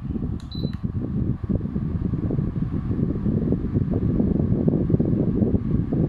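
Sharp PWJ1659R 16-inch remote-control wall fan answering its remote with one short high beep about half a second in, then running with a steady rush of air that gets louder as the fan picks up speed.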